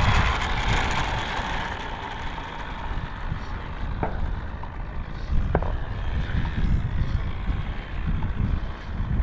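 Gusty wind buffeting the microphone as a low, uneven rumble, with two faint clicks about four and five and a half seconds in.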